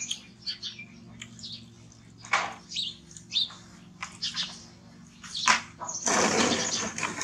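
Baby macaques giving short, high squeaks and chirps again and again, with a loud burst of noise lasting about a second near the end.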